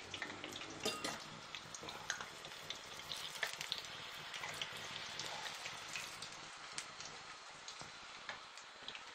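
Lokma dough balls deep-frying in hot oil in a frying pan: a steady sizzle with frequent small crackles and pops.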